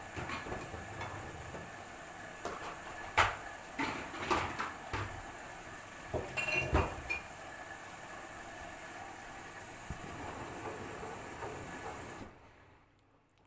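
LG F4R3VYW3WE direct-drive front-loading washing machine tumbling a load on a cold sportswear cycle, a steady wash sound broken by several irregular knocks and clanks as items in the load hit the drum. The sound drops away abruptly near the end.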